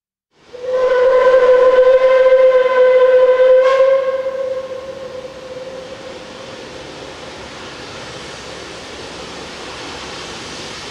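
Steam locomotive whistle on the Puffing Billy railway blowing one long, steady blast of about four seconds, which then fades into a steady rushing background noise.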